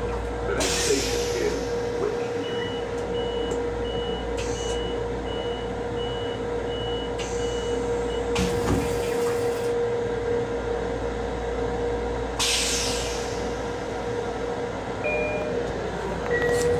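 Running noise inside an M7 electric multiple-unit railcar: a steady hum with a constant tone. A run of short high beeps, about two a second, starts a couple of seconds in and lasts about five seconds. Several short bursts of hiss come and go.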